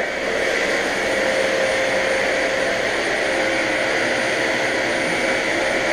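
Vacuum cleaner running steadily: a constant motor whine over a rushing hiss of air.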